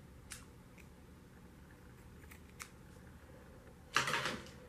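Soft handling noises from a crocheted yarn shawl: a few faint clicks, then a brief, louder rustle about four seconds in.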